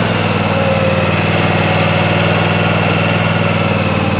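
Gravely zero-turn mower's engine running steadily as the mower drives off, with a faint high steady whine above the engine note.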